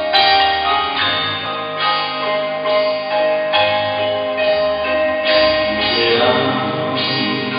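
Instrumental introduction to a hymn: accompaniment playing sustained chords that change about once a second, before the singing begins.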